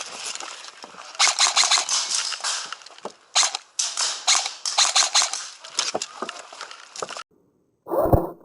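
Airsoft electric guns firing in rapid bursts of sharp clicks, cutting off suddenly about seven seconds in. A different sound with a wavering pitch starts briefly near the end.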